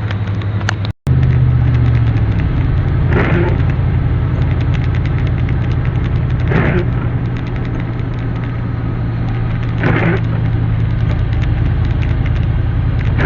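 Car running on the road, heard from inside the cabin: a steady engine hum with road noise. Over it, a short swish repeats about every three and a half seconds, most likely the windshield wipers clearing snow.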